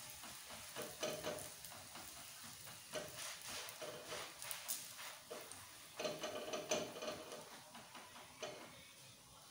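Methi paratha sizzling faintly on a hot tawa while oil is brushed over it with a silicone brush; the brush strokes scrape across the bread in several short spells, about a second in, around the middle and again near the two-thirds mark.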